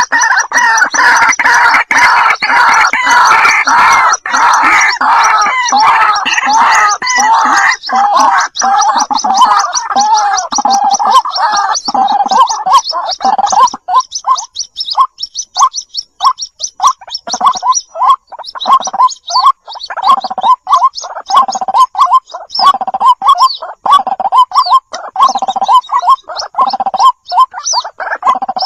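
White-breasted waterhen chicks calling for their mother: a dense, overlapping chorus of calls with high thin peeps above it, thinning about halfway through into separate calls repeated in quick succession.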